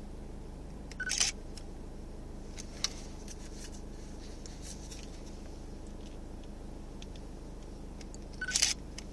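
Handling noise from a handheld camera: two brief clicks with a rustle, about a second in and again near the end, over a steady low background hum.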